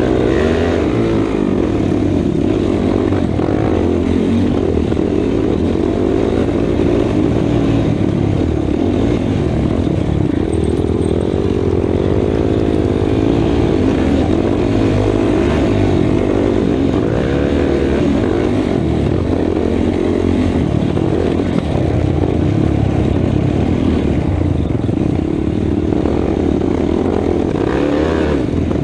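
Race ATV engine running hard under throttle, its revs rising and falling again and again as the quad is ridden over a rough cross-country course.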